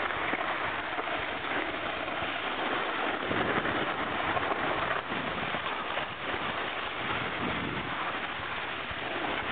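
Snowboards sliding over snow: a continuous scraping hiss of the board edges on the run, mixed with the rush of air while riding downhill.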